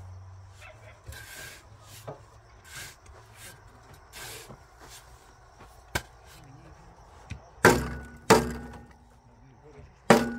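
A few sharp, loud strikes of something hard, each with a short ringing tail: two in quick succession past the middle and one more near the end, after fainter scrapes and a single click.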